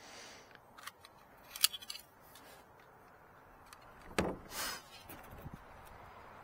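Chrome cab-light housing and its parts being handled: scattered light clicks and clatter, with a sharp click about a second and a half in, then a knock and a short rustle a little past four seconds.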